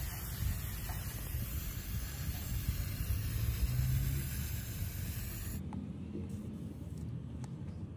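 Spray-paint can spraying in a steady hiss, the can fed with air from an inflated inner tube through a plastic hose, over a low rumble. The hiss cuts off suddenly about five and a half seconds in.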